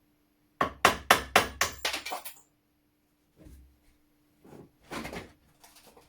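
Sharp knocks on the parts of an old flintlock shotgun being taken apart: about six in quick succession in the first two seconds, then a few softer knocks.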